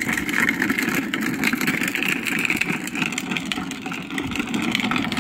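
Huffy Green Machine drift trike rolling over rough asphalt: a steady grinding rumble from its hard plastic wheels on the road, with small clicks and rattles.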